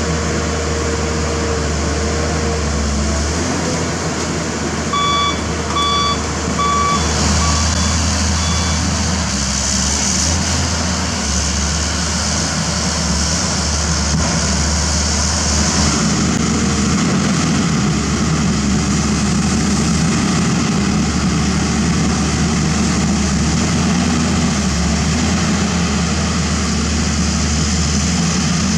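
Pindad Excava 200 excavator's Deutz six-cylinder diesel engine running steadily under load. About five seconds in, its travel alarm gives a short run of about six evenly spaced beeps that fade after a couple of seconds.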